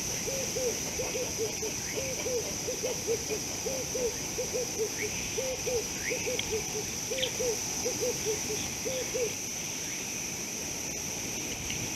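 Low hooting animal calls, repeated in quick groups of two or three and stopping about nine seconds in, over a steady high insect trill, with a few faint rising chirps near the middle.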